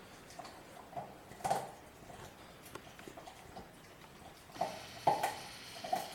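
A German Shepherd puppy chewing raw chicken with bone in it: irregular wet crunches and clicks of its teeth, a few of them louder, about a second and a half in and again near the end.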